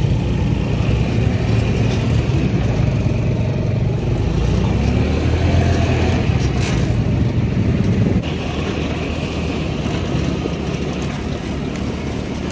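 Off-road buggy's engine running under way, with the rumble of the ride. The engine pitch rises about four to six seconds in, and the sound drops a little in level about eight seconds in.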